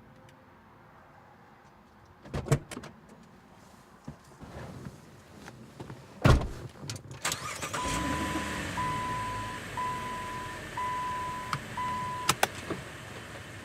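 Two sharp thumps, then a car's electronic warning chime beeping five times, about once a second, over a low engine rumble, with a couple of clicks near the end.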